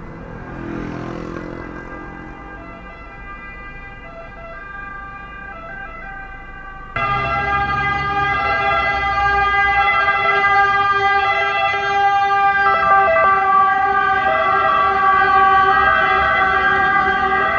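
Traffic noise with a faint siren, then about seven seconds in an abrupt change to a loud ambulance siren close by, its stacked tones steady in pitch.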